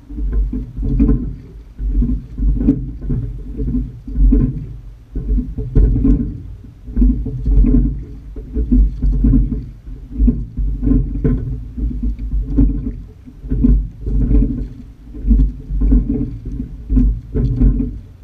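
Sculling boat being rowed at a steady, easy rate. About every one and a half to two seconds, each stroke brings a surge of oar, oarlock and water noise with short clicks and knocks, over a low rushing sound.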